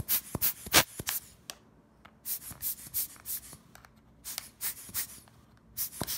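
Short sharp puffs of air from a hand squeeze blower, its nozzle blowing out the camera's accessory-shoe contacts, coming in quick runs of three to five puffs.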